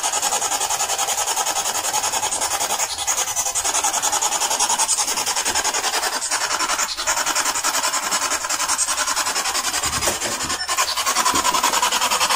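Spirit box sweeping through radio frequencies, playing a steady, rapidly chopped hiss of radio static through a loudspeaker.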